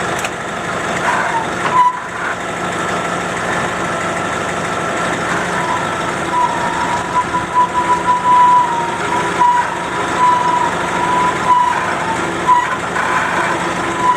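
Forklift engine running as it pulls up to the forks, with a high steady whine that comes in about six seconds in and holds.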